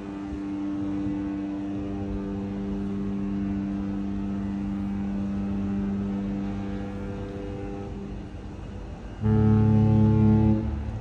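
Cruise ship horns sounding in turn: one long steady horn blast holds for about eight seconds and fades, then about nine seconds in a louder, deeper horn sounds for about a second and a half.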